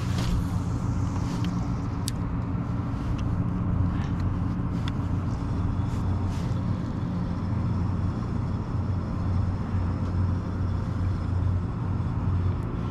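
A steady low mechanical drone, even in level throughout, with a few faint clicks over it.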